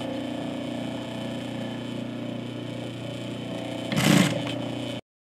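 Industrial sewing machine stitching a zipper tape to fabric: a steady motor hum with a fast, even stitching rattle. A brief louder burst of noise comes about four seconds in, and the sound stops abruptly about a second later.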